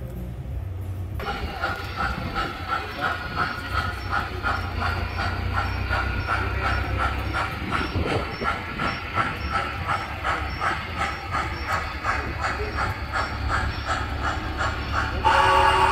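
Model O-gauge steam locomotive running on three-rail track: its sound system plays a steady quick chuffing beat over a low rumble from the motor and wheels. Its whistle blows loudly near the end.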